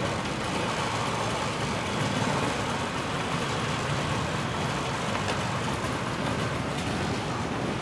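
Engines of vintage motorcycles and cars running together at low speed as a column rolls slowly forward, a steady mixed engine noise.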